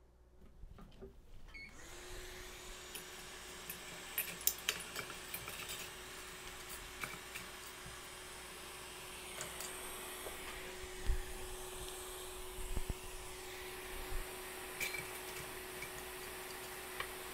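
Hot air rework station switching on about two seconds in and then blowing steadily, a hiss with a steady hum, heating a graphics card's memory chip to desolder it. A few light clicks and ticks sound over it.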